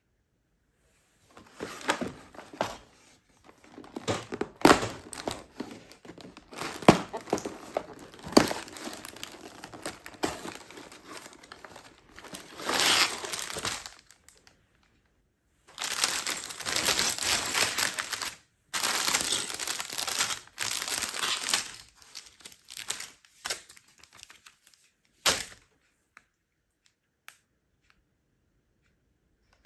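LEGO set packaging being opened and handled: crinkling and tearing, with several sharp snaps and longer stretches of continuous rustling, dying away near the end.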